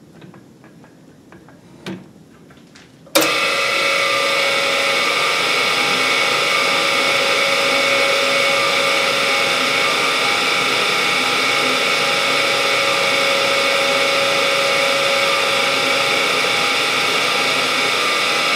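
Drill press switched on about three seconds in, then running steadily with a whine of several steady tones as its bit bores into a crankshaft counterweight to remove weight for balancing. Before it starts, a few light clicks of handling.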